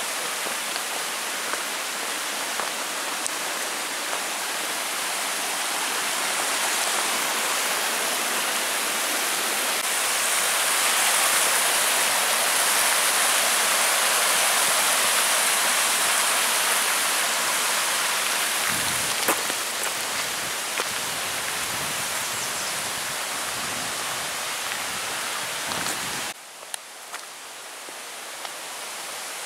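Rushing water of a small rocky forest creek tumbling over cascades: a steady hiss that swells in the middle and drops abruptly near the end to a quieter wash.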